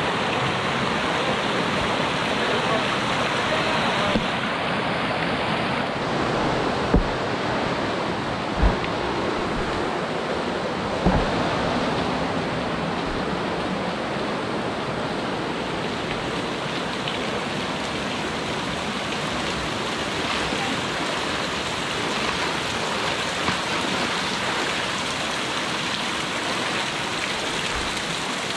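Steady rush of flowing water, a hill stream or waterfall, with a few dull knocks in the first half.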